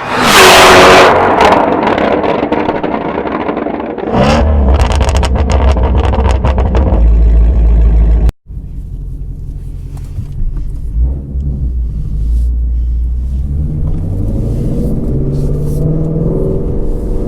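Shelby GT350R's 5.2-litre flat-plane-crank V8 through its exhaust. A loud rev opens it, with sharp crackles and pops between about four and seven seconds. After a brief break near the middle, the engine runs on with its pitch rising and falling.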